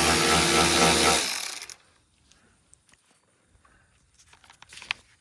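Cordless power tool spinning a socket to back out a spark plug, its motor running steadily and then stopping about a second and a half in. After that come a few light metallic clicks of the socket and plug being handled.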